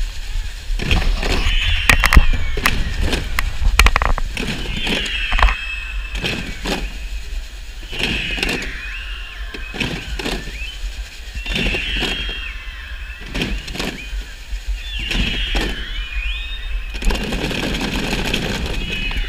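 A big crowd of schoolchildren performing a recycled mascletà, a mock firecracker barrage made by popping and striking balloons, plastic bottles and boxes: many sharp bangs and cracks, densest in the first few seconds and then more scattered, over the children's high voices.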